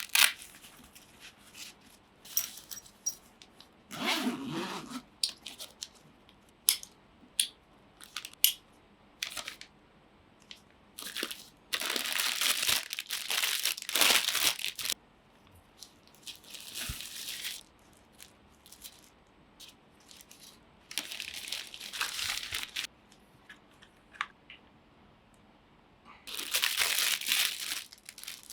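Unboxing sounds of packaging being handled: several bursts of rustling and crinkling lasting a second or more each, with scattered sharp clicks and light knocks between them.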